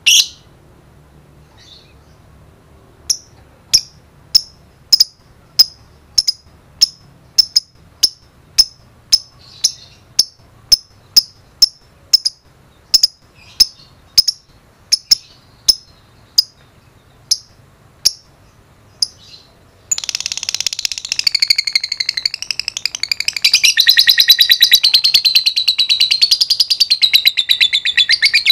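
Lovebird calling: a run of single sharp chirps, about two a second (the 'ngetik' call), then about twenty seconds in a long unbroken rapid chatter (the 'ngekek' call).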